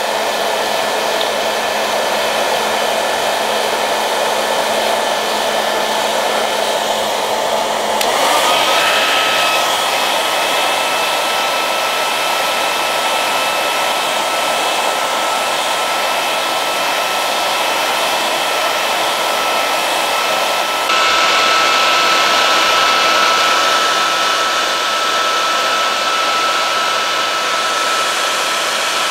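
Handheld hair dryer blowing steadily, heating the adhesive under a cracked phone camera lens. A motor whine rises and settles into a steady tone about eight seconds in, and the sound gets slightly louder about twenty-one seconds in.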